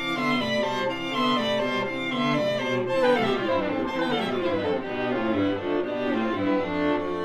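String quartet of two violins, viola and cello playing a contemporary piece, with quick-moving notes that settle into long held notes near the end.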